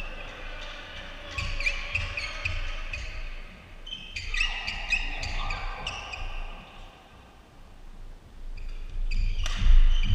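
Badminton being played in a sports hall: sharp racket strikes on a shuttlecock and short squeaks of shoes on the court floor, echoing. The loudest strikes come near the end as a rally gets under way.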